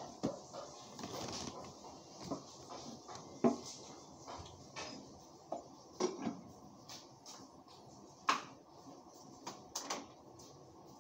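Kitchen items handled on a counter: scattered, irregular knocks and clicks, with a few sharper knocks standing out.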